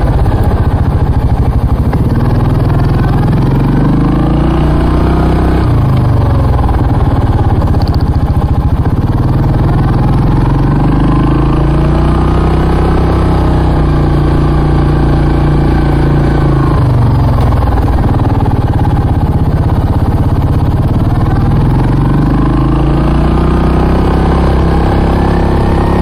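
ATV engine with a Barker's Performance aftermarket exhaust, running under way on a trail ride. Its pitch climbs and falls several times as the throttle is opened and eased off.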